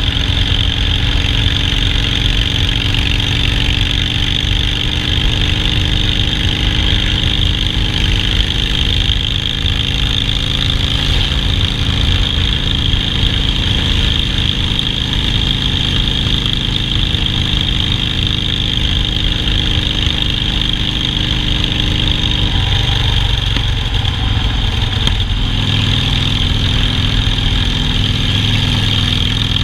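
Harley-Davidson Softail Standard's V-twin engine running steadily, its note changing for a few seconds about three-quarters of the way through.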